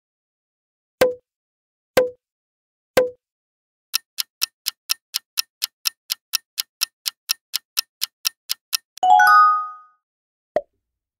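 Quiz-game sound effects: three short pops a second apart, then a fast clock-style countdown ticking about four ticks a second for some five seconds. A bright chime follows, marking the correct answer, and one more short pop comes near the end.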